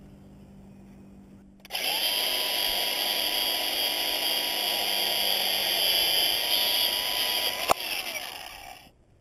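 Cordless angle grinder spinning up and cutting through steel cable: a steady high whine over a loud hissing grind, starting about two seconds in. There is a sharp click near the end, and then the whine falls as the disc winds down.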